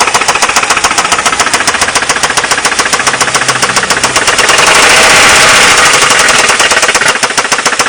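Ford Mondeo mk3 1.8 engine running with a loud, fast, even rattle of unknown cause. Past the middle it grows louder for about two seconds and the separate raps run together, then the rattle returns.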